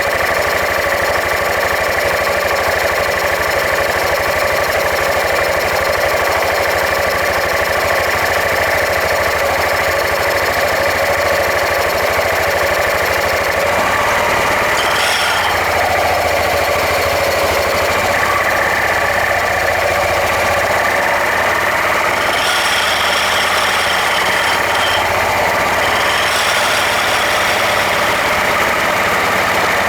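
Suzuki Skywave 400 (CK44A) scooter running, with an abnormal noise coming from its CVT drive unit, the pulley and clutch. The sound runs steadily, with a higher tone joining briefly about halfway through and again for a few seconds near the end.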